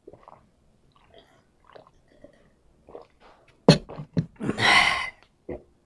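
A person swallowing water from a glass jar in small gulps. About two-thirds of the way in, the glass jar is knocked down onto a wooden table, and then comes a short, loud rush of breath.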